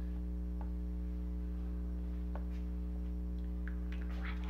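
Steady electrical mains hum with its even overtones, and a few faint clicks and taps from toy parts being handled.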